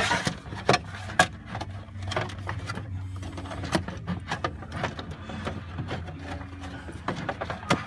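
Hands working a device's plastic cover and board back into place: a run of irregular clicks, taps and knocks over a steady low hum.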